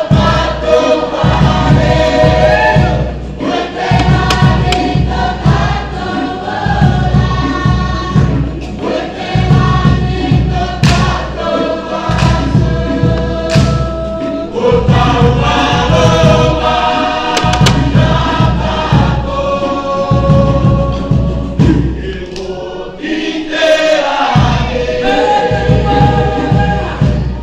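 A group singing in chorus with a steady low drum beat. The beat drops out for about a second near the end while the voices carry on.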